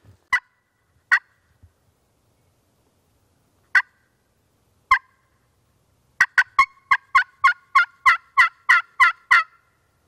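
Hand-worked turkey call imitating a hen, used to strike a gobbler: four spaced single notes, then about six seconds in a quick run of about a dozen yelps, about four a second.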